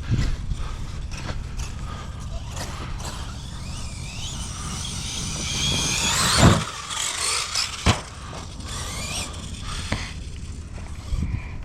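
Large RC truck's electric motor and drivetrain whining, climbing in pitch as it accelerates toward a jump ramp. Then a heavy thud about six and a half seconds in and a sharp knock just over a second later, as the truck hits the ramp and lands.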